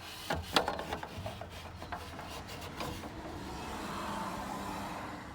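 Plastic dash trim shroud of a 2004 Chevy Silverado 2500HD being worked back into place by hand: a handful of sharp plastic clicks and knocks in the first few seconds, then a longer rubbing, scraping sound of plastic sliding against plastic.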